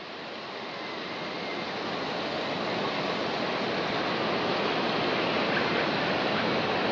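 Water spilling through a dam's spillway gates and crashing into the river below, a steady rushing that grows louder over the first few seconds.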